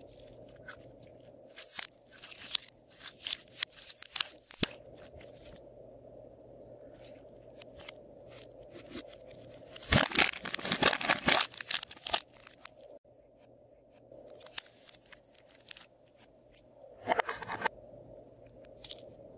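Glossy slime being stretched and squeezed by hand, giving a run of sharp little clicks and pops. About ten seconds in, a dense crackling as slime is squeezed out of a clear plastic piping bag, and a short crinkling burst near the end.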